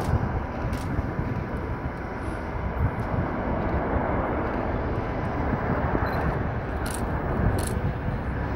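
Distant, steady rumble of the Antonov An-225's six turbofan engines as the aircraft rolls out along the runway after landing.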